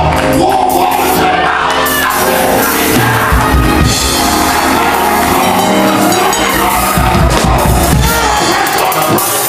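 Live gospel music played loud: a keyboard and band accompanying a singer, with heavy bass and the congregation's voices mixed in.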